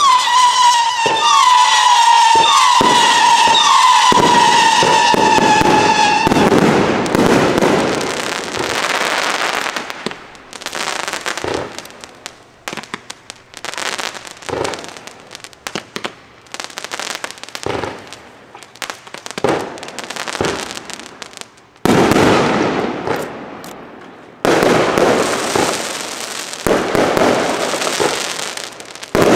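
Aerial fireworks. For about the first six seconds several shrill whistles overlap as shells climb. Then comes a long run of bursts and crackling, with two sudden louder rounds of bursts in the last third.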